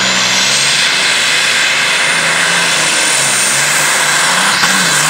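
Modified pulling tractor's engine running at full power under load as it drags the weight sled down the track. A high whine climbs in pitch over the first second, holds steady, then dips briefly near the end.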